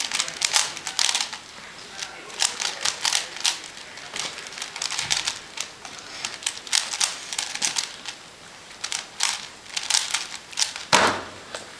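A 3x3x3 Rubik's cube being turned at speed during a speedsolve: rapid plastic clicking in quick bursts, broken by short pauses. There is a heavier thump near the end.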